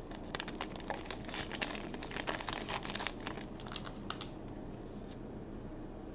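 Foil wrapper of a hockey card pack being peeled apart and crinkled by hand: a quick run of crinkles and crackles that dies away after about four seconds.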